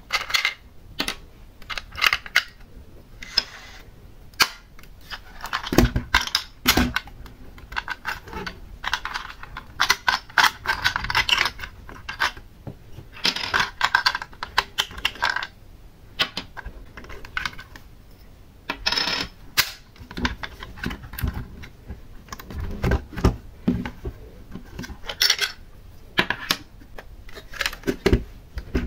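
Toy model SUV and small plastic glitter pots being handled: irregular clicks and taps as the pots are lifted out and set down and the car's doors are opened, with two stretches of rustling and scraping in the middle.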